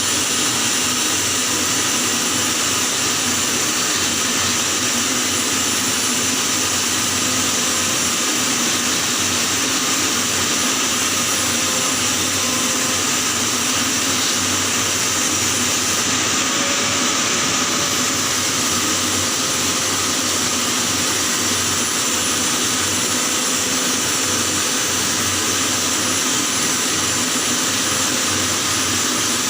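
Electric welding arc burning steadily on a pipe weld, a constant unbroken hiss.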